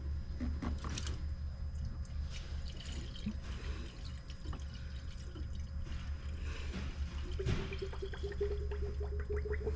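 Antifreeze concentrate poured from a plastic jug into a coolant reservoir, trickling and dripping, over a steady low hum. The reservoir is being topped up because the auxiliary cooling system was found dry. A steady higher tone comes in about seven and a half seconds in.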